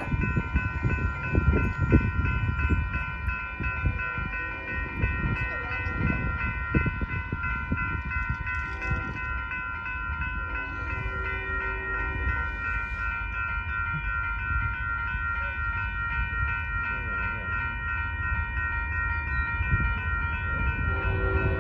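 Railroad grade-crossing warning bell ringing steadily, a chiming tone that does not change, while the crossing gates are down and a train approaches. Low gusty rumble underneath, strongest in the first few seconds. A train horn starts to sound near the end.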